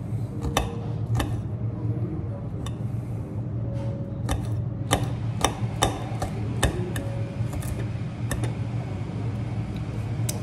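Metal knife and fork clinking and scraping against a plate while cutting kebab meat and salad: about a dozen sharp, irregular clicks over a steady low hum.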